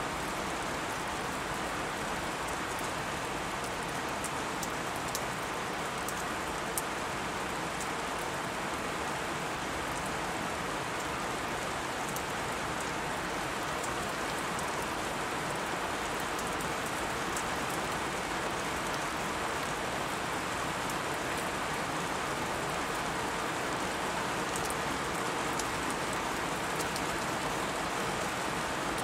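Ambient recording of steady rain: an even hiss with scattered faint ticks of drops.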